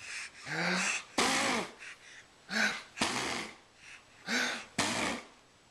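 A man blowing raspberries against a baby's body in playful bursts, about six in a row, some with a low voiced grunt mixed in.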